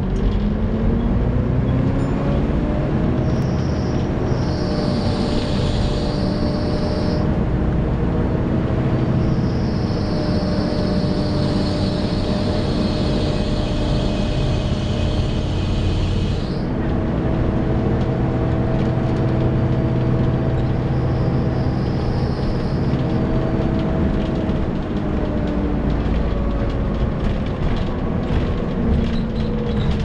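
Volvo B7TL double-decker bus's engine cooling fan whining, the whine rising in pitch over the first few seconds, holding steady, then falling away near the end, with a high screech coming and going over the bus's low engine and road rumble. This whine is known to bus enthusiasts as a "screechy hoover".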